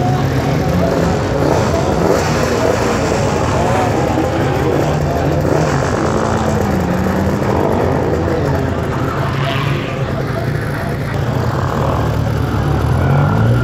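Several motorcycle engines revving at a drag-strip start line, their pitches rising and falling over each other.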